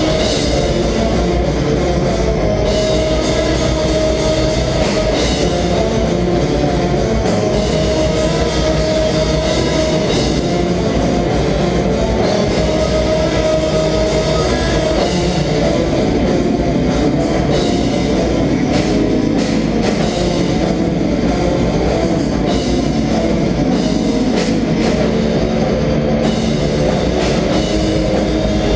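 Black metal band playing live: distorted electric guitars, bass and drum kit, loud and dense without a break.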